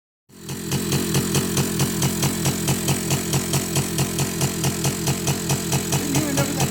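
ATV engine idling with a steady, even pulsing beat.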